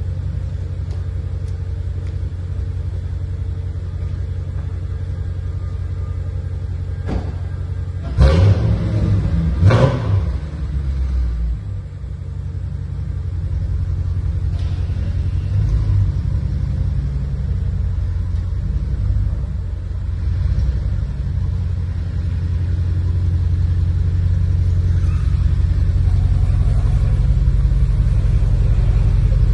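Audi RS4 exhaust idling with a steady low rumble, blipped twice in quick succession about eight and ten seconds in, then settling back to idle. It grows louder toward the end, and the sound echoes off the walls of an enclosed garage.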